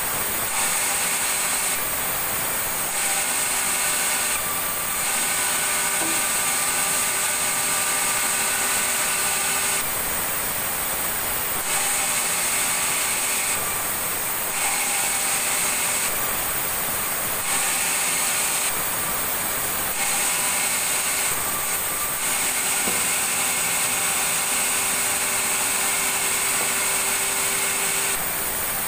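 Power saw cutting timber, running steadily with a high whine over a constant hiss; the texture shifts abruptly every second or two.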